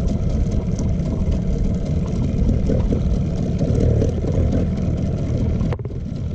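Small boat's outboard motor running steadily as the boat travels, with a brief sudden cut near the end.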